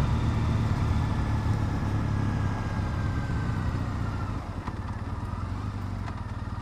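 Triumph Bonneville T100's parallel-twin engine running at low road speed. About four seconds in it eases off and drops in level, then settles into a slow, even beat near idle.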